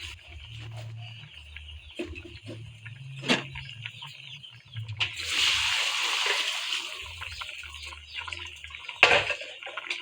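Water pouring for about two seconds, starting about halfway through, amid scattered knocks and clinks.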